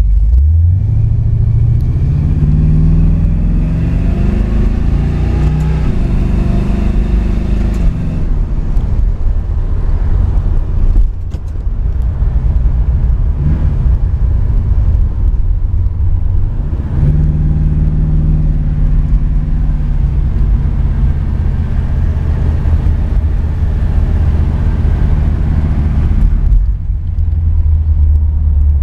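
1972 Chevrolet Nova's engine heard from inside the cabin while driving. Its pitch climbs over the first several seconds, drops back, and climbs again about two-thirds of the way in. Near the end it settles into a deep, low rumble.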